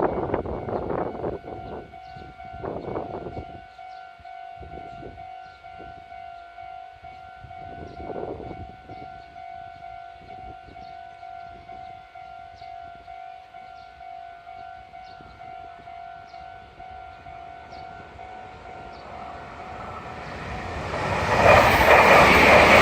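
Japanese level-crossing warning signal ringing its electronic "kan-kan" tone at a steady, regular beat. About twenty seconds in, a Meitetsu μSKY electric train rushes past loudly over the crossing, drowning out the bell.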